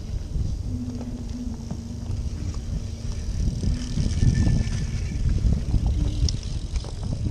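Cyclocross riders running past on grass, carrying their bikes over the barriers: thudding footsteps and knocks from the bikes, loudest about four seconds in. Wind rumbles on the microphone, and a faint steady low hum sits under it.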